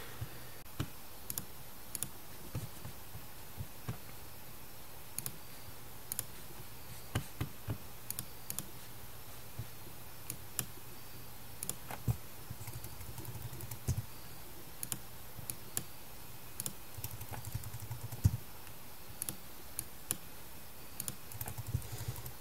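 Irregular clicks of a computer mouse and keyboard, a few every couple of seconds, over a steady low hum.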